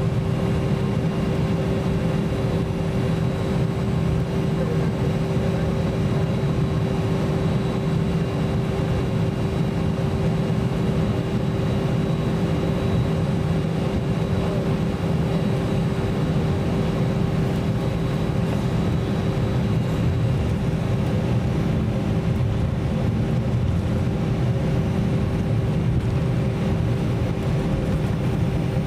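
Cabin noise inside an Airbus A320-200 as it taxis: a steady low rumble with a steady humming tone over it.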